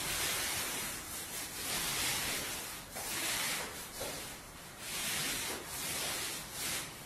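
Masking tape being pulled off the roll and pressed along the skirting boards, heard as a series of rasping, rubbing strokes, each about a second long.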